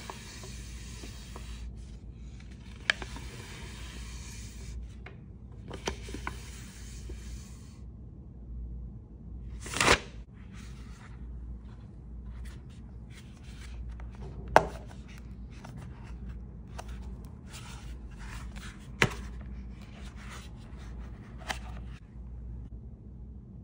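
Packaging and a paper manual handled by hand: rustling in stretches, then a short loud rustle about ten seconds in and a few sharp taps and clicks.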